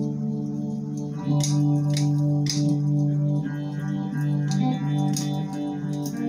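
Homemade shovel-handle guitar played with a glass slide. Low plucked notes ring on, and the pitch slides between them.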